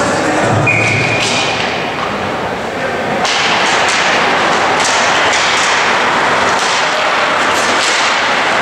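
Ice hockey play in a rink: skates scraping the ice, with sharp clacks and thumps of sticks and puck, and voices around. A short high tone sounds about a second in, and the scraping and clacking grow dense from about three seconds in, as play gets going after the faceoff.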